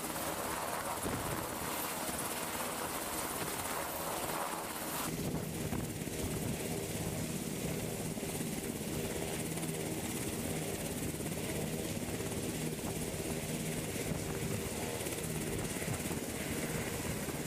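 Sikorsky H-60 Seahawk helicopter hovering low overhead: steady rotor and turbine noise over rotor-wash hiss. The tone shifts about five seconds in.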